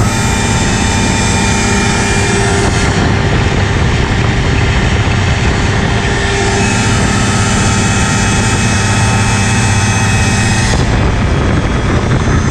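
Phantom X1 ultralight's engine and propeller running steadily in cruise flight, heard from the open cockpit, with a slight change in tone a few times.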